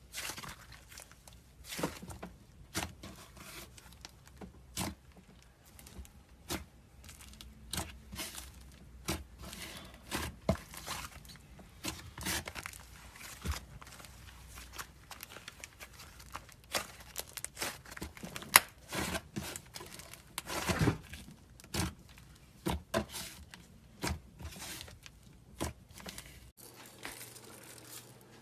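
Slime being squeezed, stretched and poked by hand, giving off irregular sticky pops and crackles.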